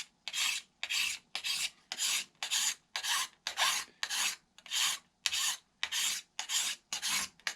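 Steady back-and-forth strokes of a hand rasp or abrasive block scraping over the landing gear mock-up, about two to three strokes a second, shaping an airfoil into the gear leg.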